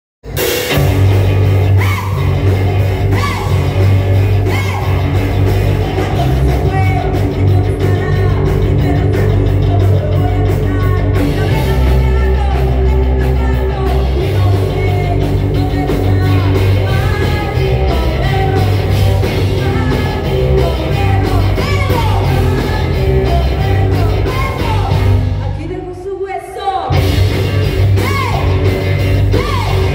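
Live rock band playing: distorted electric guitar, bass and drums with a woman singing and yelling the lead vocal. Near the end the band cuts out for about a second, leaving little but the voice, then comes crashing back in.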